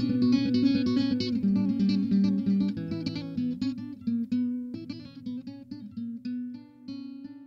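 Background music played on plucked guitar, a run of quick notes, slowly fading out.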